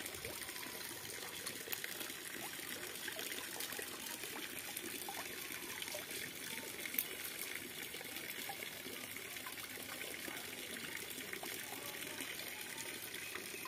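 Steady wet trickling and crackling of a mass of live catfish fry wriggling in a plastic colander, with scattered faint ticks and one sharper tick about seven seconds in.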